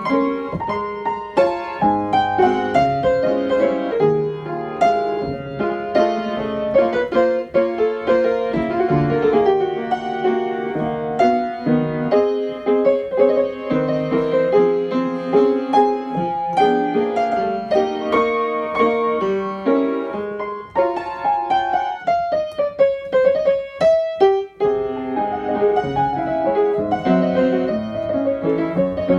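Solo piano music with quick running notes and several descending runs.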